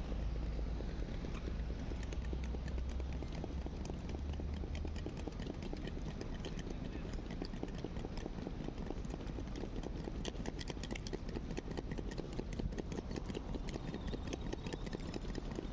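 Busy city street ambience: many people talking, dense clicking of steps on pavement, and a low engine hum that is strongest in the first few seconds.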